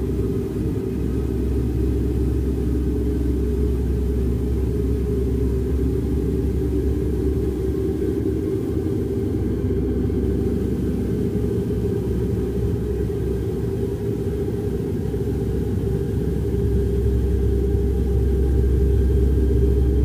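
A steady low rumble with held droning tones over it, rising slightly near the end.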